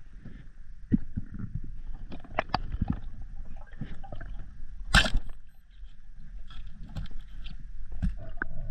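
Underwater noise around a freediver's camera: low water rumble and movement with scattered muffled knocks and clicks, and one loud sharp knock about five seconds in.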